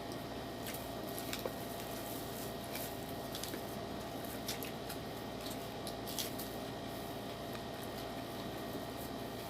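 Small eating sounds at a meal: scattered light clicks and taps of utensils and chewing, over a steady background hum.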